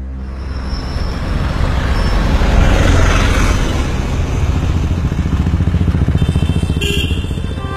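A motor vehicle's engine going past, with a fast low pulsing. It grows louder to about three seconds in, holds, and eases off near the end.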